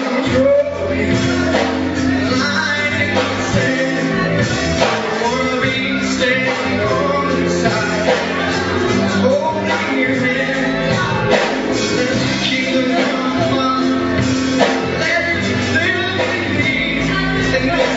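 Live church worship music: a band playing steadily with voices singing, echoing in a large hall.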